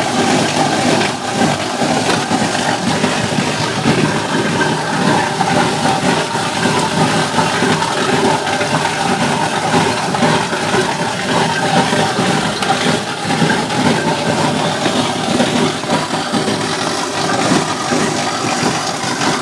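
Fruit elevator conveyor running steadily, carrying Williams pears up out of the hopper, with a constant clatter of pears knocking against the slats and each other over the machine's motor noise.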